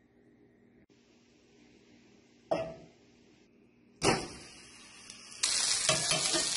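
Steak searing in hot fat in a cast-iron skillet: a loud burst of sizzling about four seconds in, settling into a loud, steady sizzle from about five and a half seconds. Before that it is faint, with one sharp knock about two and a half seconds in.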